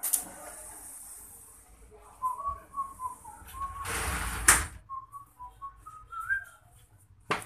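A person whistling a few short wavering notes, twice. Between the two spells, about four seconds in, a loud burst of noise builds and stops sharply, and a single sharp click comes near the end.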